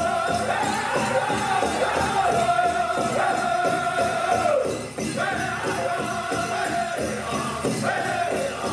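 Powwow drum group singing high-pitched held phrases over a steady, even drumbeat on a big drum, with jingling bells from the dancers' regalia. The singing drops out for a moment about halfway through, then picks up again.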